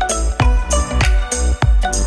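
Background music with a steady beat, heavy bass and bright percussion.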